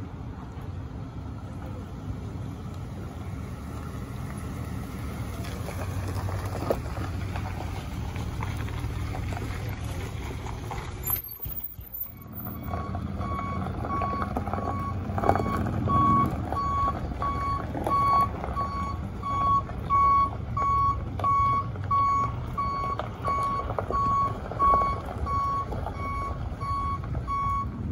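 Heavy-duty pickup truck engine running as it drives. About 12 seconds in, after a short break, a backup alarm starts beeping at a steady, even pace over the engine as the truck reverses the jet boat's trailer.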